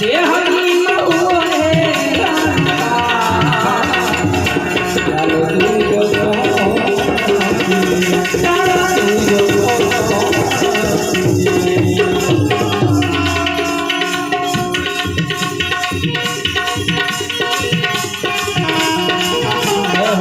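Instrumental interlude of a Gujarati bhajan: harmonium holding sustained chords and melody over a steady tabla rhythm, with no singing.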